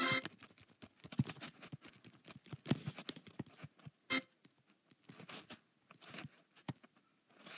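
Faint, irregular light clicks and rustles: handling noise as fingers work a touchscreen near the microphone, with one sharper click about four seconds in.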